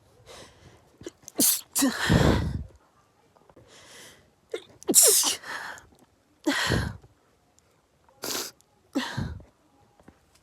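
A person sneezing over and over in a rapid fit, about six sharp sneezes in quick succession with short breaths in between. The fit is set off by perfume.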